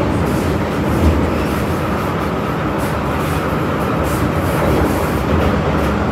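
MTR M-train electric multiple unit running at speed, with a steady rumble of wheels on rail and a faint steady hum under the noise.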